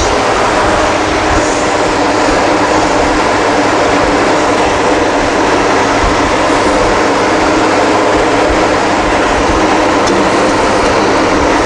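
Steady, loud noise of a running machine with a low hum underneath, unchanging throughout.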